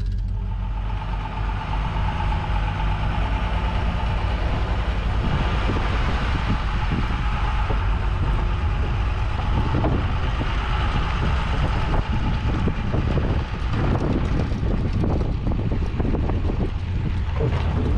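Pickup truck towing a boat on its trailer up a launch ramp: the engine running steadily under load with tyre and road noise, and knocks and rattles from the trailer and boat in the second half.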